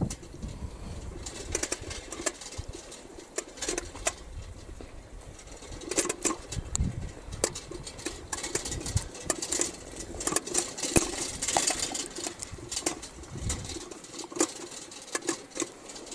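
Wind buffeting the microphone in gusts while a bicycle is ridden along a rough dirt track, with irregular clicks and rattles from the bike throughout. The gusty rumble eases off near the end.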